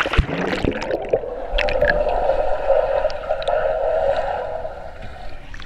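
A splash as the camera plunges into the pool water, then the muffled, steady underwater noise of the pool heard through the submerged camera, fading near the end.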